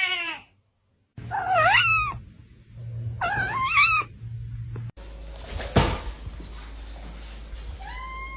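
Domestic cat meowing: a wavering call trails off just after the start, then two more meows that slide up and down in pitch. About halfway through, the sound cuts abruptly to a steady hiss with a low hum and one click, and a held steady tone begins near the end.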